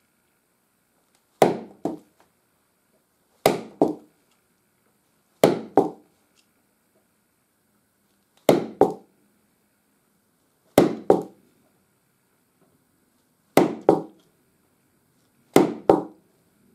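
Bone awl being driven through buckskin on a wooden board with a bone mallet, punching lacing holes: seven sharp knocks, most of them quick double strikes, one every two to three seconds.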